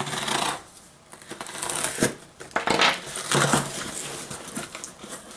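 X-Acto knife slicing through a cardboard box in several separate scraping strokes, then the cut cardboard flap pulled open.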